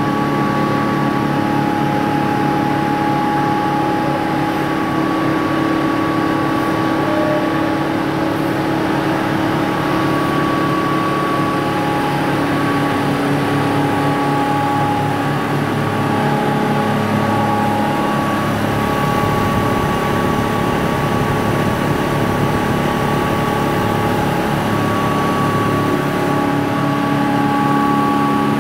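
Impact pulverizer grinding plant running while grinding turmeric: a steady mechanical drone with several held whining tones over a rushing, grinding noise.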